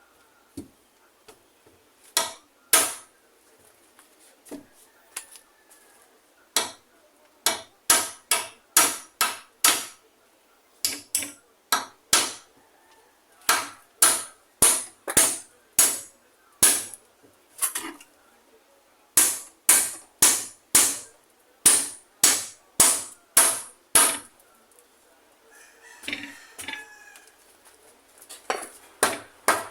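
Hammer driving nails, sharp ringing blows in runs of about two to three a second with short pauses between the runs.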